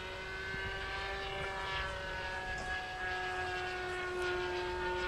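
O.S. FX .61 two-stroke glow engine of a radio-controlled model airplane running steadily in flight, a high-pitched propeller drone holding nearly one pitch.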